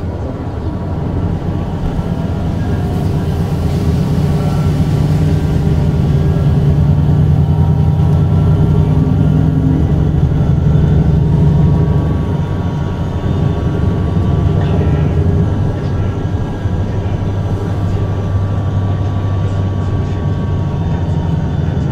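Golden Dragon XML6105 plug-in hybrid city bus driving, heard from inside the cabin: a steady low drivetrain drone that builds over the first few seconds and eases off slightly about twelve seconds in.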